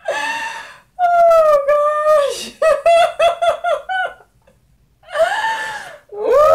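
Women laughing hard: high squealing shrieks, a run of quick ha-ha-ha pulses in the middle, then a long squeal near the end that slides down in pitch.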